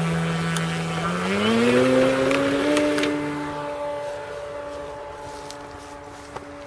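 Electric motor and propeller of a model Piper Super Cub RC plane humming steadily, then throttled up about a second in with a rising whine to a steady higher note for the takeoff at full power. The whine fades as the plane climbs away.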